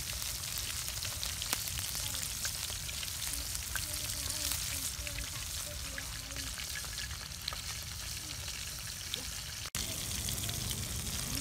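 Whole fish deep-frying in oil in a steel wok: a steady sizzle full of fine spitting crackles, broken by a split-second gap near the end.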